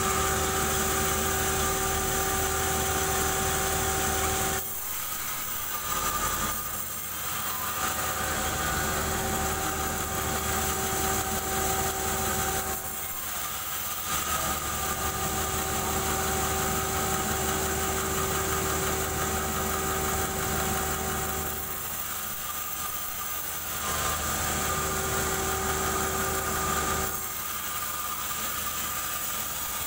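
Band sawmill running without cutting: a steady machine hum with a few steady tones, which dip briefly several times.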